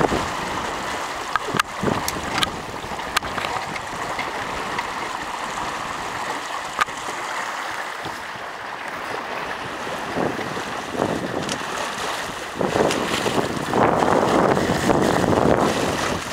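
Water rushing and lapping along a sailboat's hull as it sails, with wind buffeting the microphone. A few short clicks in the first seconds, and the water noise grows louder for the last few seconds.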